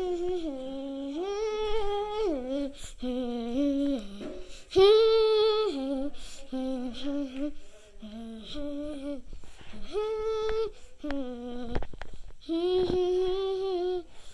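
A high voice humming a wordless tune in long held notes, some with a slight waver, with short breaks between phrases. A couple of light knocks come near the end.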